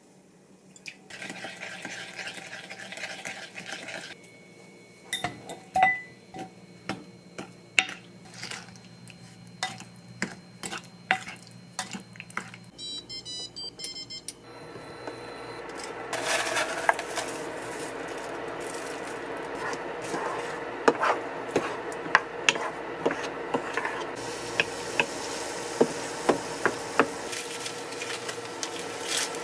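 Kitchen sounds: a spoon working and clinking in a glass bowl of sauce, then rice cakes frying in chilli oil in a pan, a steady sizzle with many sharp taps and scrapes from a wooden spatula.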